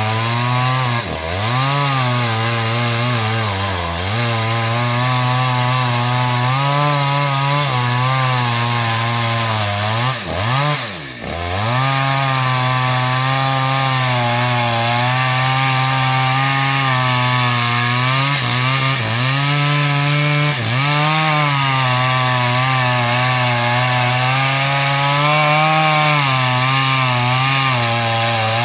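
Stihl MS 250 two-stroke chainsaw running at high revs while cutting wood, its engine pitch sagging briefly and picking back up about five times, most deeply about a third of the way in.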